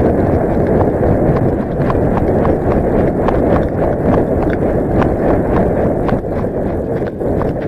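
Running footsteps on frozen forest ground, picked up by a body-worn action camera: sharp footfalls about two and a half times a second over a dense, steady rustling noise.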